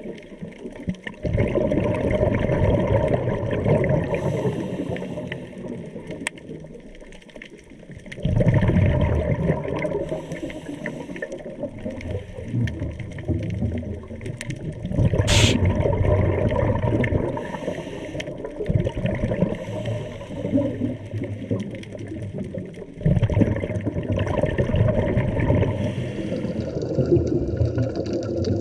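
Scuba diver's breathing through a regulator, heard underwater: exhaled bubbles gurgle out in surges about every seven seconds, four times, with quieter inhalations between. A single sharp click about halfway through.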